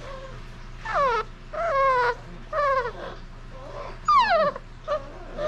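Basset hound puppy, about a month old, whining four times in high-pitched cries, most of them falling in pitch, roughly a second apart.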